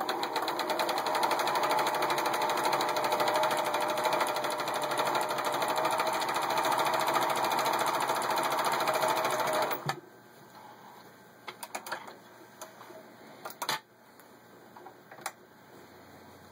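Pfaff 297-1 sewing machine running steadily, stitching one of its built-in decorative stitch patterns, then stopping suddenly about ten seconds in. A few scattered light clicks and knocks follow.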